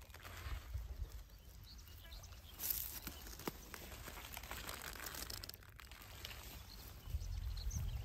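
Outdoor ambience: a steady low rumble with light rustling as a hand brushes the stiff, waxy leaves of sea kale, and a few faint bird chirps.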